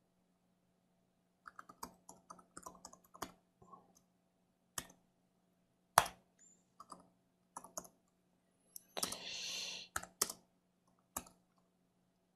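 Computer keyboard being typed on: a quick run of keystrokes, then single key presses with pauses, the sharpest about six seconds in. A short hiss of noise comes a little after nine seconds, over a faint steady hum.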